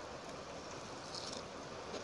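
Steady background hiss, with one brief, soft, high-pitched rustle a little over a second in.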